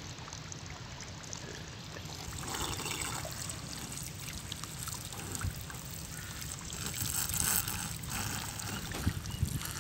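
A thin jet of water from a small irrigation hose trickling and splashing into a muddy puddle, steadily.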